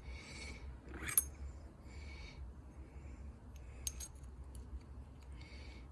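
Small metal-on-metal clicks and scraping from a padlock and a shim being handled while the lock is taken apart, with a sharp click about a second in and a lighter tick near four seconds.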